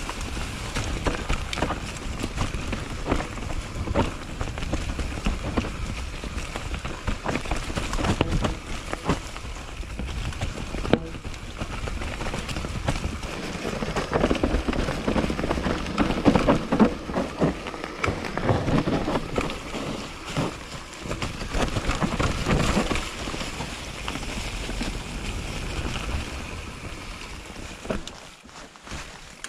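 YT mountain bike riding down a leaf-covered dirt trail: tyres rolling over dry leaves and roots, the bike rattling and knocking over bumps, with wind rush on the microphone. Briefly quieter near the end.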